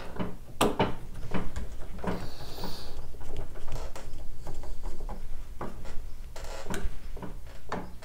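Hand screwdriver driving small screws into the interior plastic-and-metal assembly of a Nest x Yale smart lock: irregular clicks, taps and scraping, with a longer scrape about two seconds in.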